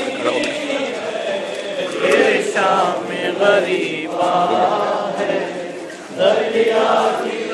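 A crowd of men chanting together in unison, a Shia mourning chant (noha). The voices dip briefly near the end, then come back in strongly.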